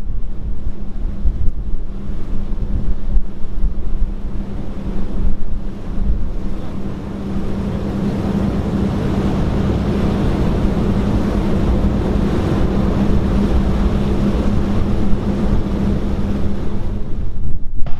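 Wind buffeting the microphone over a steady low engine hum from the boat carrying the camera, with the rush of water. The wind comes in gusts at first and settles into a steadier rush about halfway through.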